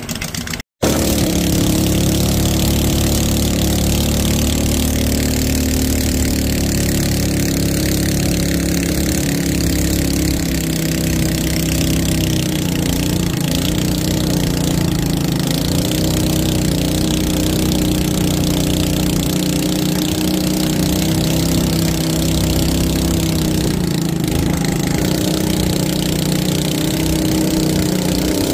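Small fishing boat's engine running steadily at a constant pitch under way, over a rush of water and wind; the sound drops out for a moment under a second in.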